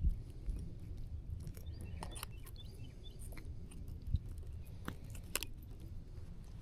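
Faint scattered clicks and knocks of fishing tackle being handled while a crappie is landed, over a low steady rumble.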